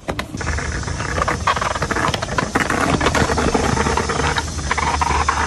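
Skateboard wheels rolling over tiled paving: a steady rumble with many small clacks as the wheels cross the joints.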